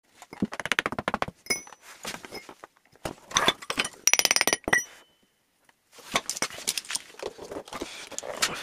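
Metal pieces clinking and tapping against each other and into moulding sand: a fast run of sharp ticks at the start, then clinks with a brief metallic ring around the middle. In the last few seconds there is gritty scraping of sand as the pieces are worked out of the mould.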